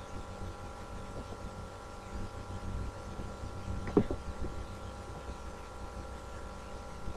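Steady electrical hum with low rumble, broken by a single sharp knock about four seconds in as the webcam is bumped and jolted.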